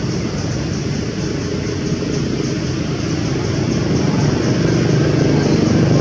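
A steady low motor hum, like an engine running, with a steady high hiss over it, growing a little louder near the end.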